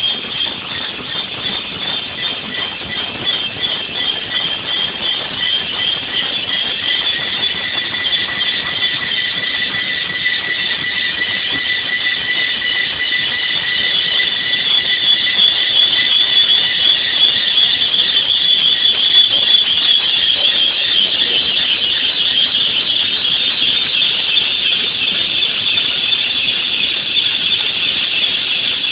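Multi-spindle drilling machine drilling holes in a cast-iron brake drum: a steady high-pitched squeal of the drill bits cutting, with several held tones. It grows louder toward about two-thirds of the way through.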